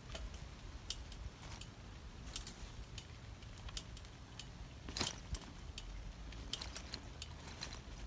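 Bicycle rattling and clicking irregularly as it rides over a bumpy dirt trail, over a low steady rumble; a sharper clack about five seconds in.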